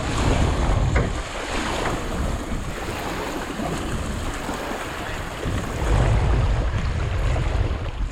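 Wind buffeting the microphone over water lapping, with strong low gusts at the start and again about six seconds in.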